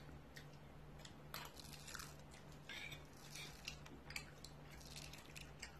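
Faint, scattered crackles and clicks of a dried peel-off face mask being pulled away from the skin, over a faint low hum.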